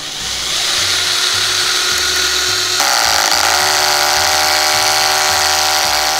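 HiKOKI DV12DD 10.8 V cordless driver drill running as it drives a 4 x 30 mm tapping screw into wood. About three seconds in, the sound changes to a steady buzzing rattle as the clutch slips with the screw seated, the clutch having kicked in a little early. Background music plays underneath.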